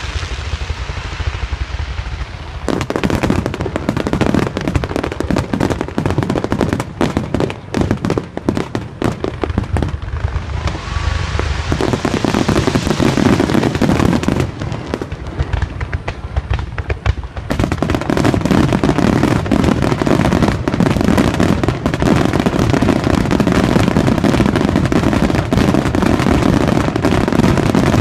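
Fireworks finale: a dense, rapid barrage of shell bursts and crackling that starts about three seconds in, thins briefly around the middle, then resumes thicker and almost continuous for the last ten seconds.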